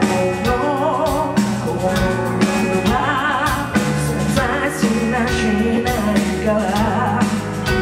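Live rock band: a vocalist sings long held notes with wide vibrato over drums and bass.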